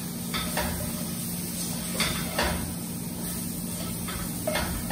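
Spatula scraping and knocking against a wok as potato pieces are stir-fried, in a handful of separate strokes, over a steady low hum.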